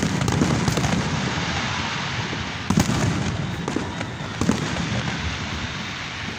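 Aerial fireworks display: a continuous run of shell bursts and crackling, with a few sharper bangs standing out, about three seconds in and again about four and a half seconds in.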